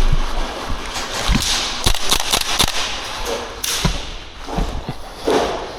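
Gas blowback airsoft gun firing several separate shots, each a sharp crack, spread through the moment among other clicks and knocks.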